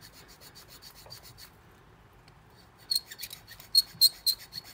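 Hand file stroking across a soft lead key blank, filing away the pin marks left by impressioning. A run of quick, light strokes, a short pause, then louder, uneven strokes from about three seconds in.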